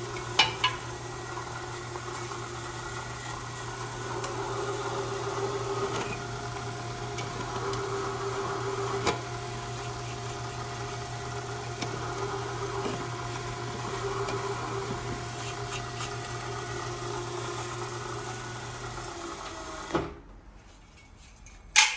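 Vertical knee milling machine's spindle running steadily with a drill bit in the chuck, with a couple of sharp metal clanks as the steel tubing is handled. The machine is switched off near the end and the running sound stops.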